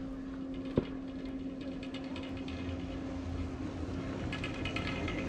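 A 1936 single chairlift's machinery running, a steady mechanical hum over a low rumble, with a sharp click about a second in and a spell of rattling clicks near the end.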